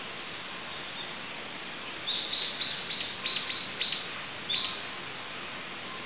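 Common kingfisher giving a series of short, high, thin calls in several quick bursts, starting about two seconds in and ending a little before the last second, over a steady background hiss.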